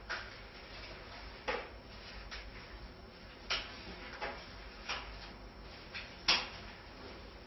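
Leafy tree branches being handled and pushed about: a series of short, sharp rustles and twig snaps at irregular intervals, the loudest about six seconds in.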